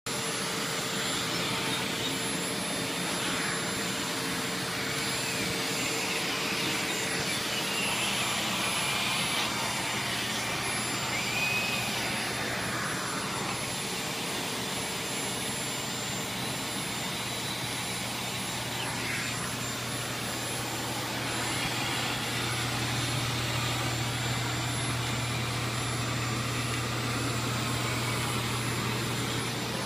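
Vacuum cleaner running steadily, with a whine that rises and falls in pitch several times as it is moved about; a low hum grows a little stronger past the two-thirds mark.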